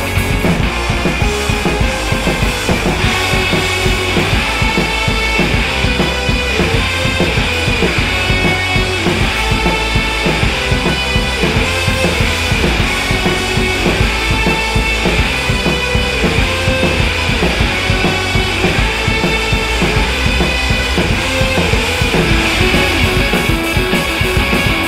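Aggressive instrumental rock music: a full band with a driving drum kit, bass and distorted guitars playing a steady, dense groove.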